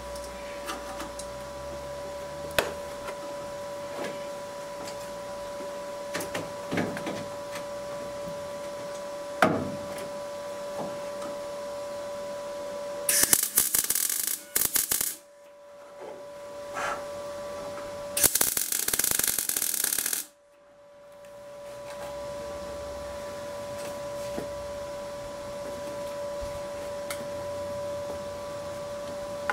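Electric arc welding on steel engine mounts on a car chassis: two loud bursts of welding about 13 and 18 seconds in, each lasting about two seconds. Before them come a few knocks of handling metal, over a steady hum.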